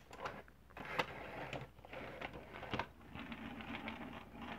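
Plastic toys and their packaging being handled and moved about: scattered light clicks and knocks with faint rustling.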